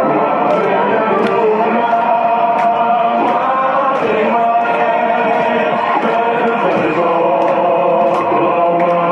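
A crowd chanting and singing together over party music, with a sharp beat such as claps about every two-thirds of a second.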